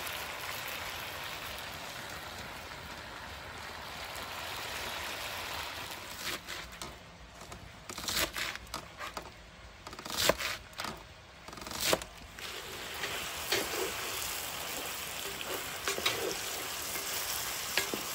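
Sliced tomatoes sizzling in oil in a cast-iron Dutch oven over a campfire. About halfway through, the sizzle drops away for a few irregular knife chops on a wooden cutting board, cutting cilantro and green onions, and then the sizzling returns with light stirring clicks.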